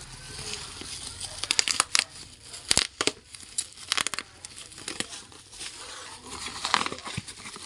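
Plastic packaging crinkling as it is handled and opened, in irregular crackles with scattered sharp clicks.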